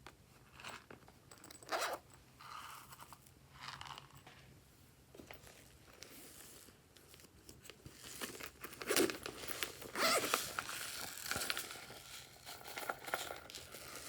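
Glossy slime being squished and stretched by hand: intermittent sticky crackles and pops, a few scattered ones at first, then a denser run of crackling in the second half.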